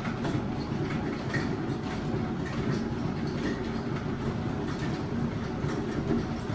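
ZiggyDoo Ferris Cat Wheel spinning under a running cat: a steady low rumble with faint regular clicking as the wheel turns.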